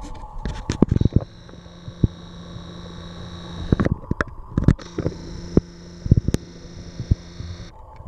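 Ceiling fan running with a steady hum, overlaid by a compact camera's zoom motor whining twice: for about three seconds from a second in, then again for about three seconds from just before the five-second mark, cutting off abruptly each time. Scattered sharp clicks and knocks fall between and around the whines.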